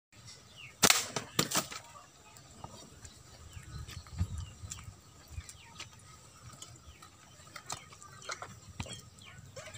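Small birds chirping in short, scattered calls, with three sharp taps or wing-flaps close together about a second in.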